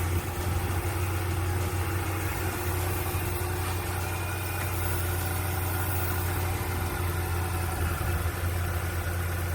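Dodge Charger SRT8's Hemi V8 idling steadily just after its first start in over two years. A hiss of air comes from a disconnected vacuum line that should be connected to the intake: a vacuum leak.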